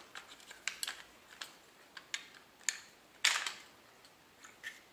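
Metal parts of an AR-15 rifle clicking and clacking as it is broken open, the rear takedown pin pushed out and the upper and lower receivers pivoted apart. A string of short sharp clicks, the loudest a brief clatter about three seconds in.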